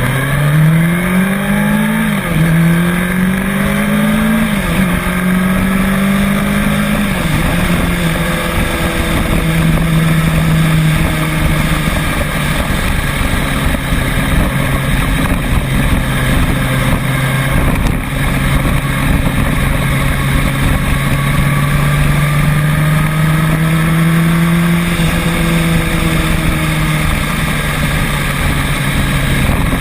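A vehicle engine accelerating through gears: its pitch rises and drops back three times in the first seven seconds. It then settles into a steady cruise, with a slight rise and fall in pitch later on, over steady road and wind noise.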